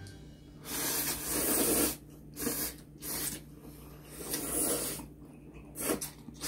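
Two people slurping spicy ramen noodles: a series of airy slurps, the first and longest lasting over a second, followed by about five shorter ones.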